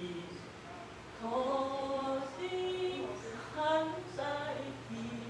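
A woman's voice chanting in long held notes that waver in pitch, in several short phrases, over a steady low hum.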